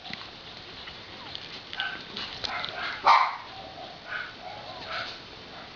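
Young Havanese puppies squeaking and whimpering in short, high, scattered cries, the loudest about three seconds in.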